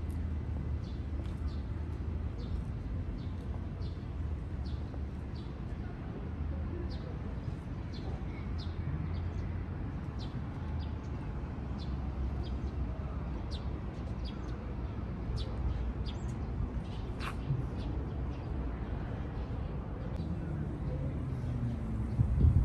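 Outdoor ambience: small birds chirping in short, high, repeated notes, about two a second, over a steady low rumble, with faint distant voices.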